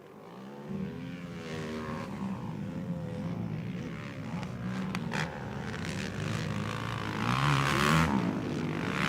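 Racing quad engines revving hard and dropping back through the gears on track, rising and falling in pitch and getting steadily louder as they approach.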